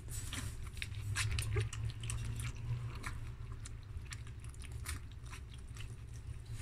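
Three-week-old German Shepherd puppies lapping goat milk from a shallow tray: quick, irregular wet clicks of tongues in the milk, several puppies at once, over a low steady hum.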